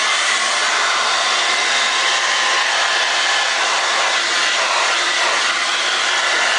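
Steady, loud rushing of air from a running electric blower, unchanging throughout.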